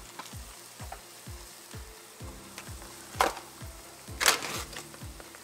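Onions and mushrooms sizzling in hot oil in a pan, stirred with a wooden spoon. Raw Beyond Burger plant-based patties go into the pan with two loud bursts, about three seconds in and again a second later, the second one longer. Background music with a steady beat plays under it.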